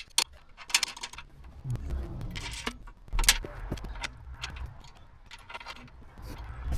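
Metal clicks and clattering rattles from the seat and swivel base being handled and fitted, with a heavier thump about three seconds in.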